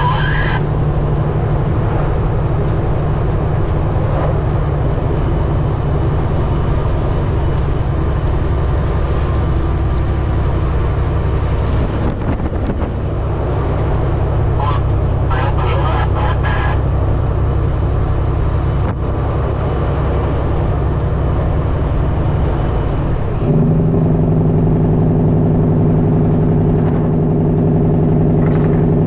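Semi truck's diesel engine and road noise heard from inside the cab while driving, a steady low drone. About 23 seconds in, the engine note changes to a stronger, steadier pitch and gets a little louder.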